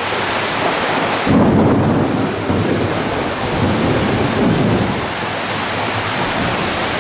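Heavy rain falling steadily, with a low rumble of thunder setting in suddenly about a second in and rolling on in waves for several seconds.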